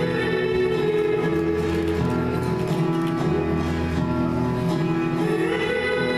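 Music with long held notes, the accompaniment to a contemporary dance routine.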